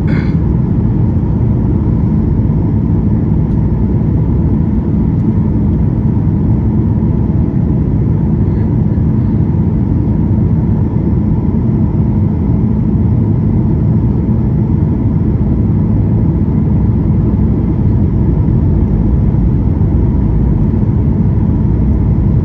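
Steady low rumble of cabin noise inside a Boeing 737 MAX 8 on approach, from its CFM LEAP-1B engines and the airflow past the fuselage, with a faint steady whine above it.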